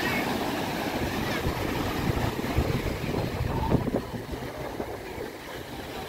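Sea surf washing up and back over a sandy beach as small waves break close by, with wind buffeting the microphone in gusts.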